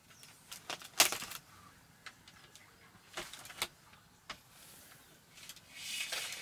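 A bamboo pole knocking and scraping against bamboo rafters and dry palm-leaf thatch as an electrical cable is hooked over a rafter: scattered light clicks, a sharp knock about a second in, two more around three and a half seconds, and a longer rustle near the end.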